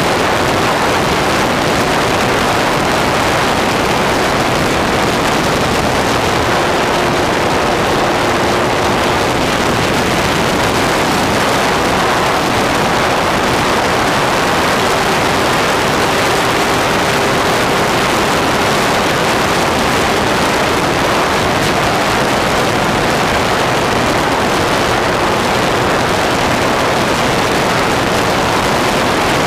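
Loud, steady wind rush over the onboard camera of a Durafly T28 RC model plane in flight. Beneath it is the electric motor and propeller's faint tone, which rises slightly about halfway through as the throttle changes.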